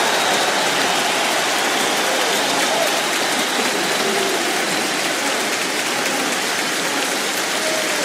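Large football stadium crowd cheering, a steady dense wash of many voices.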